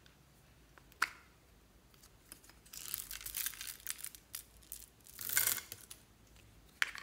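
Plastic heart-shaped capsule clicking open, then small plastic beads tipped out of it, rattling and rustling as they pour into a glass tray of slime add-ins, with a louder rush of them a little after the middle. Another sharp plastic click near the end.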